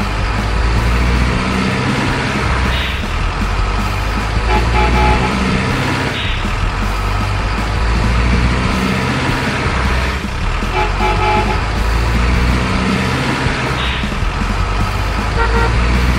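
Truck sound effects, such as a toy truck's sound module plays: a low engine rumble that swells and falls in a repeating loop, with a horn tooting three times, about six seconds apart.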